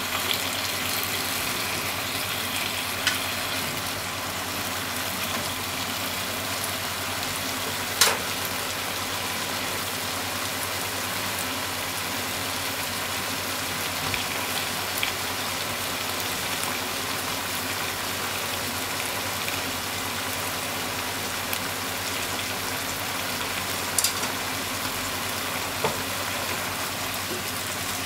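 Potatoes, shimeji mushrooms and minced meat sizzling steadily in a frying pan, with a few sharp clicks of wooden chopsticks against the pan as the food is turned, the loudest about eight seconds in.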